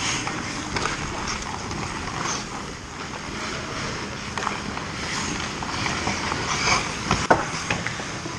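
Ice hockey on an open rink: skate blades scraping and carving the ice in repeated hissing scrapes, with light stick clicks and one sharp crack about seven seconds in.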